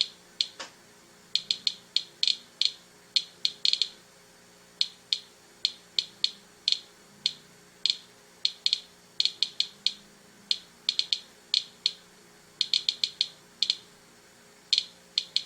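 Handheld Inspector Geiger counter clicking at an irregular, random rate, sharp ticks in uneven clusters of several a second. It is counting radiation from dried kelp at about three times the background reading.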